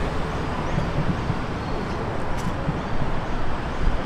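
Steady low rumble of vehicle traffic, with no distinct event standing out.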